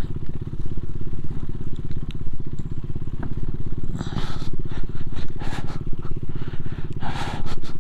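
Motorcycle engine running steadily under way, its firing pulses even throughout, with a couple of short rushes of noise, about four seconds in and near the end.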